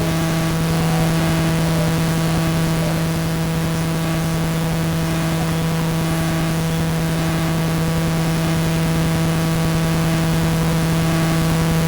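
Steady electrical buzz at one unchanging pitch with overtones, over a constant hiss. It starts abruptly just before and replaces the commentary.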